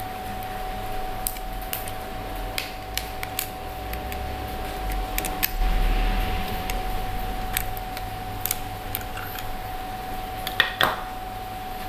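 Plastic clicks and clacks from handling a small action camera in its clear plastic waterproof case as the case's latch is opened and the camera is taken out, with a louder clack near the end. A steady faint hum runs underneath.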